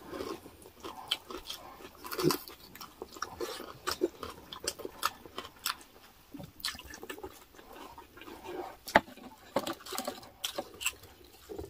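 Chewing and lip-smacking of people eating pork dinuguan: irregular wet mouth clicks and smacks, with one sharper click about nine seconds in.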